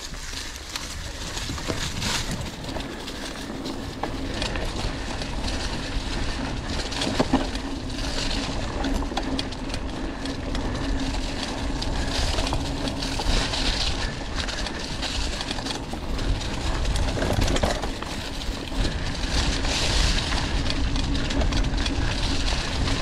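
Mountain bike riding along a dirt forest trail: steady tyre rumble and rattle from the bike, with wind across the microphone and a faint constant hum.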